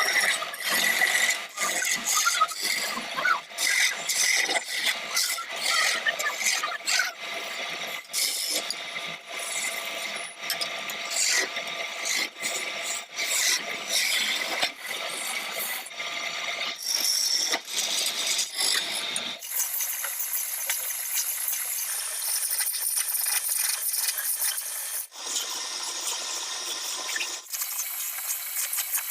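Hand tools working wood: irregular scraping, rattling and tapping strokes. About two-thirds of the way in this gives way to a steadier high hiss.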